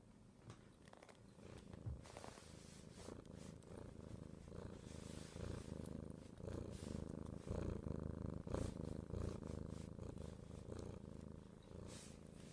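Domestic cat purring steadily, heard up close, growing louder from about two seconds in.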